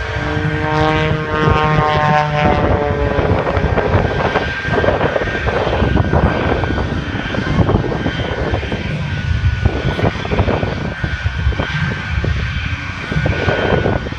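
Propeller airplane engine running loud as it flies past. Its droning tone falls slightly over the first few seconds, then gives way to a rough, steady rumble.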